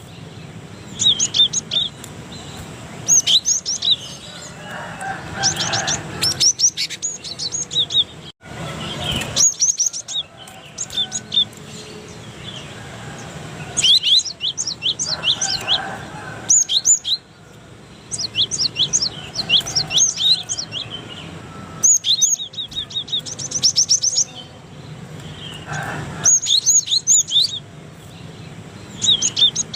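Cinereous tit (gelatik batu) singing: clusters of rapid, high, repeated chirping notes every couple of seconds.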